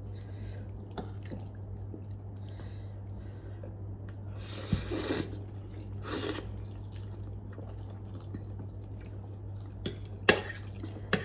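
Eating sounds during a noodle meal: two short noisy slurps or sniffs around the middle, then a few sharp clicks near the end, the loudest about ten seconds in, over a steady low hum.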